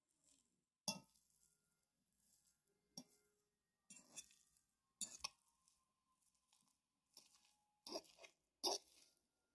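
A metal fork mashing boiled russet potatoes in a pan: irregular sharp clinks as the tines strike the pan, about six of them, the loudest near the end, with soft crunching between.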